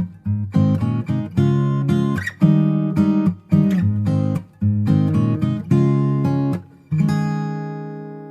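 Acoustic guitar music: chords strummed in short phrases with brief breaks between them, ending on a final chord about seven seconds in that rings on and fades.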